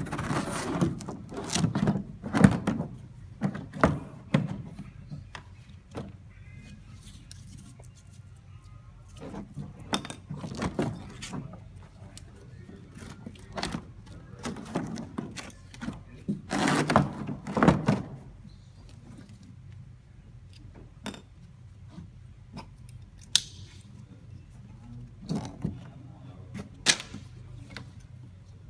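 Monitor-mount parts being handled and set into the foam cutouts of a packing case: irregular thunks, knocks and clicks with some rustling, in bunches about 2 s and 17 s in, then single sharp clicks near the end.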